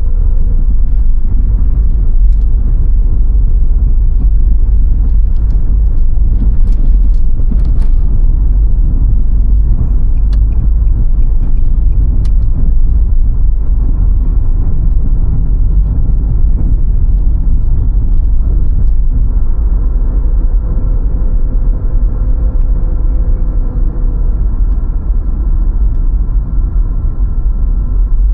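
Car driving along: a steady, loud low rumble of engine and road noise, with a few faint clicks about seven seconds in.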